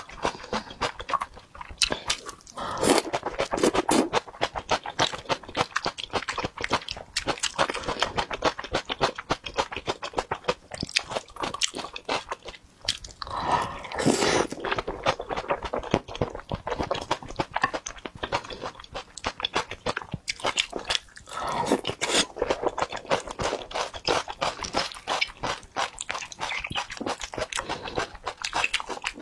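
Close-miked eating of noodles in broth: continuous wet chewing and lip-smacking clicks, with louder slurps about three seconds in, around the middle, and again a little past two-thirds of the way through.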